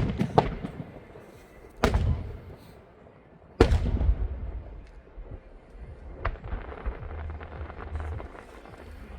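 Fireworks exploding overhead: about four sharp bangs, each trailing into a low rumble, with fainter crackling between them.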